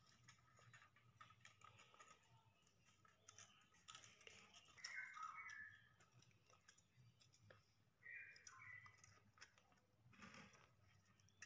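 Faint clicks and scrapes of steel binding wire being wrapped around wooden blocks and twisted tight with pliers, close to near silence, with a few short scratchy rustles in the middle.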